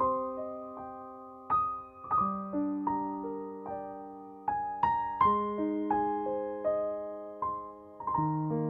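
Background music: a gentle, slow piano piece, its notes struck and left to ring over soft chords.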